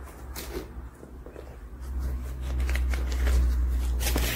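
Rustling and crinkling of hands rummaging in a handbag among wrapped sweets, with many small clicks that grow busier in the second half, over a steady low hum.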